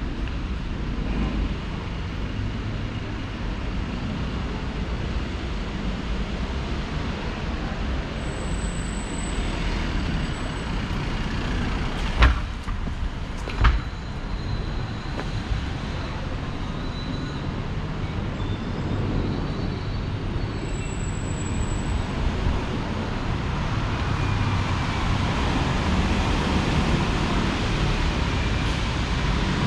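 Steady city street traffic noise from passing road vehicles, growing slightly louder near the end. Two sharp knocks come a second and a half apart near the middle, and there are two faint brief high squeals.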